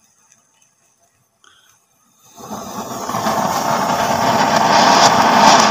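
Anar fountain firework catching about two seconds in and spraying sparks with a steady rushing hiss that swells louder.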